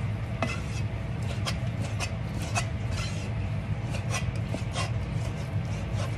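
Kitchen knife slicing raw beef on a plastic cutting board, the blade tapping the board about twice a second, over a steady low hum.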